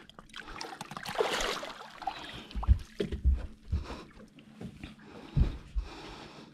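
Water splashing about a second in, then several dull thumps in a small boat.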